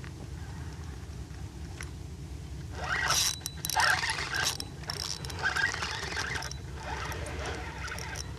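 Spinning reel being cranked to retrieve a lure. A gritty, scratchy whirring comes in spurts from about three seconds in, over a steady low rumble.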